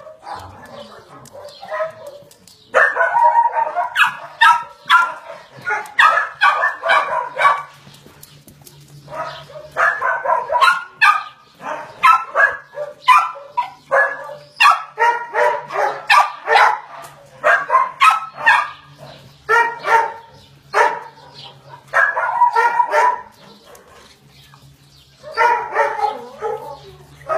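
Dog barking in quick, repeated barks, grouped into bouts of a few seconds with short pauses between; the barking starts about three seconds in.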